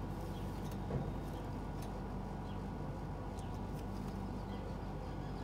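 Steady low background hum with short, faint high bird chirps scattered throughout, and one soft knock about a second in.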